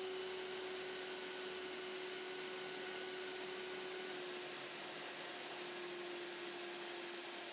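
Electric motor spinning a wooden hacksaw handle in a chuck while sandpaper is pressed against the turning wood: a steady motor hum under a sanding hiss.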